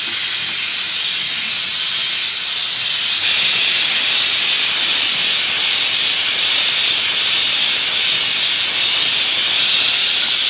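Rotary glass-bottle beer filling machine running: a steady, loud hiss that gets a little louder about three seconds in.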